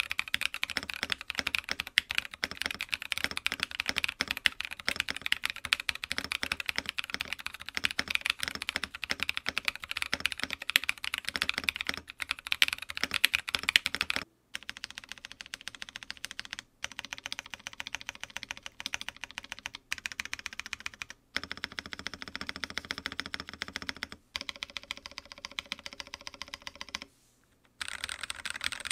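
Typing on an Odin Gaming Nova65 gasket-mount 65% mechanical keyboard built with an aluminum plate, AEBoards Naevy switches and Drop Artifact Bloom Dark Dolch keycaps. Fast, continuous keystrokes for about half the time, then typing with a few short pauses.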